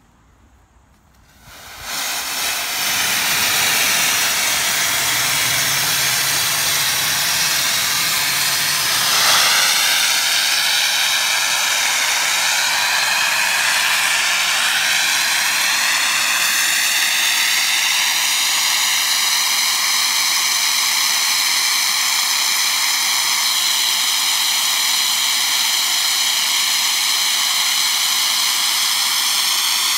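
Boiler blowdown on an 1899 Locomobile steam carriage: about 200 pounds of steam blasting out through the opened blowdown valve as a loud, steady hiss. It starts about a second and a half in and surges briefly around nine seconds in. The blowdown empties the boiler of pressure and flushes out scale and impurities.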